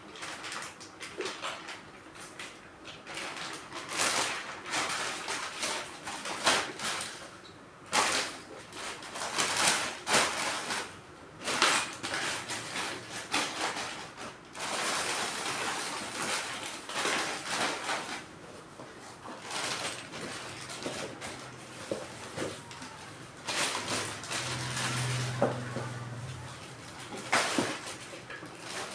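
Irregular knocks, clicks and clatter of objects being handled, with a stretch of hiss about halfway through and a brief low hum near the end.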